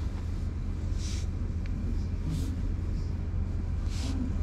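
A hand stroking a cat's fur close to the microphone, three soft brushing swishes about a second and a half apart, over a steady low rumble.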